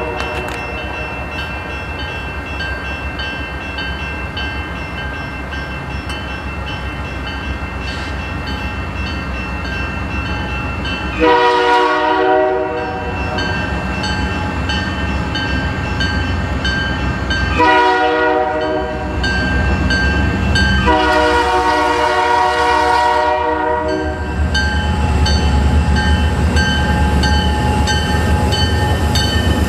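Pan Am Railways EMD GP40-2W diesel locomotive sounding its Nathan K3L air horn: a chord dies away at the start, then come three blasts, two short ones followed by a longer one. Under the blasts the locomotive's engine and the rolling train make a steady rumble that builds as the train passes.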